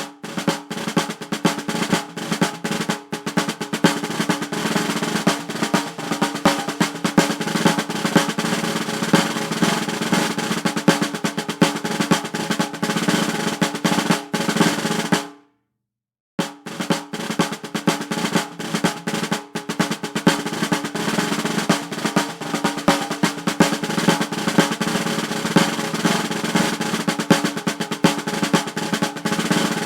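Sustained drum roll of rapid, dense strokes that fades out about halfway through. After about a second of silence, a second drum roll starts and keeps going.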